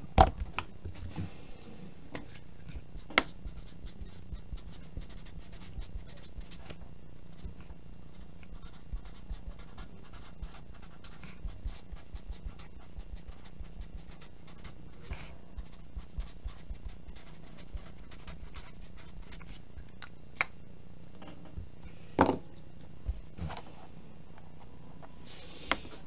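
Pen scratching on a paper note card while writing, with a few sharper knocks against the desk.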